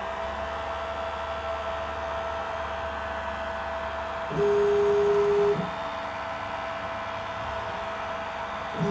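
Home-built pick-and-place machine running: a steady hum, with a louder stepper-motor whine at one steady pitch about four seconds in that lasts just over a second and stops abruptly, and another starting at the very end.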